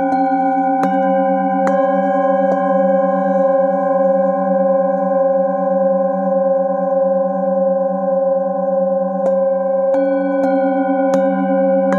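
Several singing bowls struck with a padded mallet. A few soft strikes come in the first three seconds, then the bowls ring on together with a slow wavering beat in the low tones, and a new run of strikes starts near the end.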